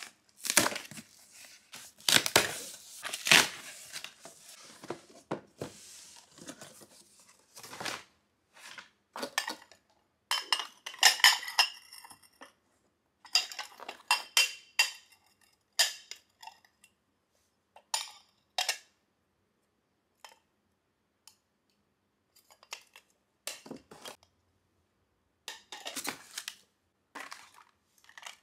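Cardboard box flaps and packaging handled, opening the box, then Corelle Winter Frost White glass bowls and plates clinking and scraping against each other as they are lifted out and stacked, with short high rings from the dishes about ten to twelve seconds in.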